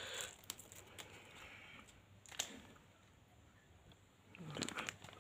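Faint crinkling of a small plastic sticker wrapper being handled and set down, with a few light clicks. The crinkling picks up again near the end.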